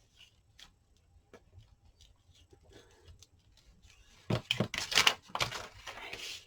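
Paper and card being handled at a crafting table: faint small clicks, then about four seconds in, a couple of seconds of loud rustling, scraping strokes.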